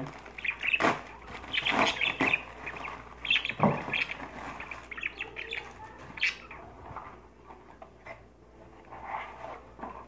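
Packaging being handled and opened: irregular crinkling and rustling with a few sharp knocks, busiest in the first four seconds and thinning out towards the end.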